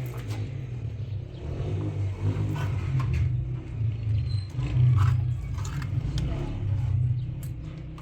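Steady low mechanical rumble, like a motor or engine running, with scattered light clicks and knocks over it.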